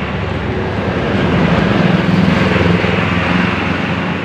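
A large bus driving past close by, its diesel engine hum and tyre noise swelling about a second and a half in and easing off toward the end.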